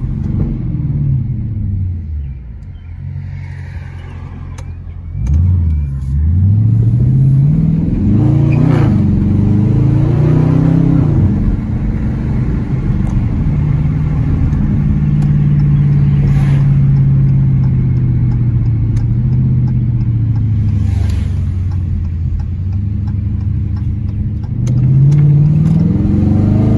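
2020 Dodge Challenger R/T's 5.7-litre HEMI V8 with its mid mufflers deleted, the exhaust note falling off at first, then accelerating hard about five seconds in with the pitch climbing and dropping back at each gear shift. It holds a steady cruise for several seconds and climbs again near the end.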